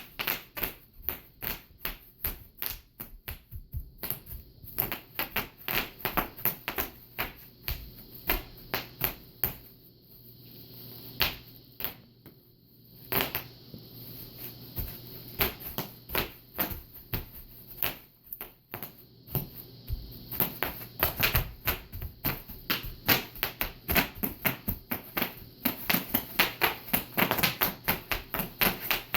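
Bubble wrap being popped: an irregular run of sharp pops, several a second, thinning out with a lull about ten to thirteen seconds in, then coming faster and denser from about twenty seconds on.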